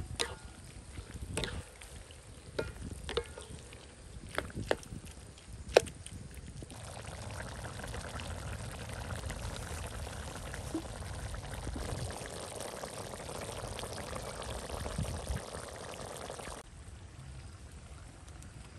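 A metal spatula clicking and scraping against a wok. Then, about seven seconds in, liquid is poured steadily into the wok for about ten seconds and stops abruptly.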